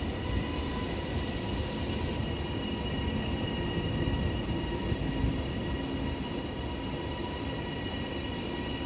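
Class 331 electric multiple unit pulling slowly into a terminus platform: a steady rumble with constant high-pitched whine tones. A high hiss over it cuts off suddenly about two seconds in.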